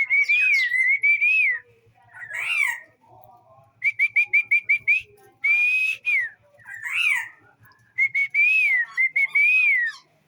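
A songbird singing loud whistled phrases: gliding up-and-down whistles, with a quick run of about seven short notes near the middle.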